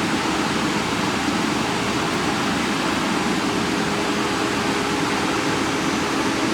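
Diamond saw disc on a five-axis CNC stone machine cutting marble under water coolant: a steady rushing hiss with a steady low hum underneath.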